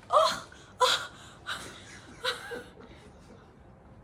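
A person's short breathy laughs and gasps, four quick bursts in about two and a half seconds, the first and second the loudest.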